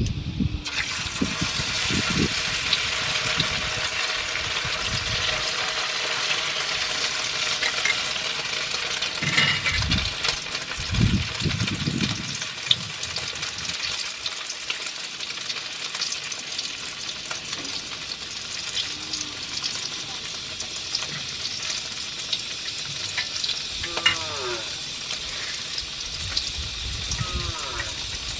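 Tortang talong, a grilled eggplant coated in beaten egg, is laid into hot oil in a wok and sizzles as it fries. The sizzle starts suddenly as it hits the oil and keeps going steadily, with a few dull knocks about ten seconds in.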